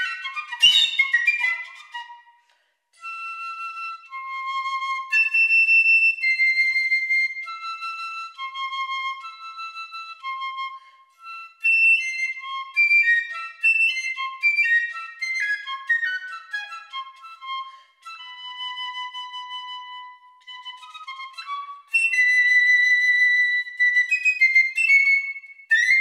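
Unaccompanied piccolo playing a single high melodic line: quick runs of short notes alternating with held notes, with a brief break about two and a half seconds in.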